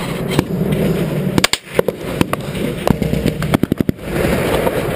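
Gunfire in a firefight: scattered single shots, then a quick burst of about eight shots about three and a half seconds in, over steady rushing background noise.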